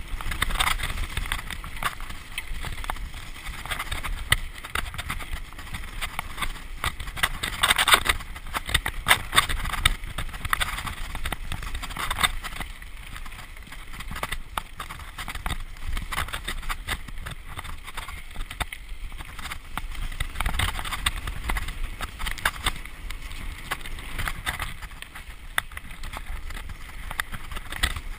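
Mountain bike riding fast down a dirt singletrack: constant rattling and clattering of the bike over bumps and roots, with tyre noise and a low rumble of wind buffeting the camera microphone.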